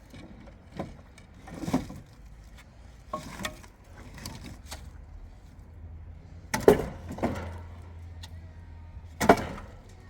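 Irregular knocks and thumps, about eight of them, the loudest a little past halfway and near the end, over a low steady hum.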